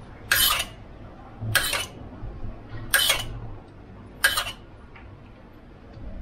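A metal spoon scraping against cookware four times, in short, evenly spaced strokes about a second and a half apart, as red sauce is spooned out over the chicken.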